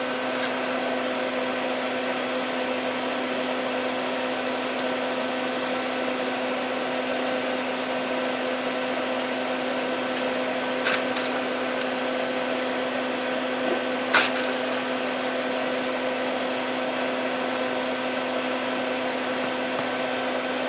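A steady machine hum with fixed tones, and a few light taps about halfway through as pins are pressed in around the edge of a stained glass panel to hold its border came.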